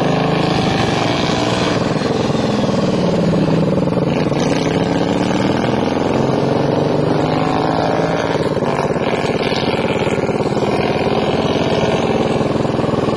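Racing lawn mower engine running hard, its pitch dropping and then climbing again as it slows and speeds up.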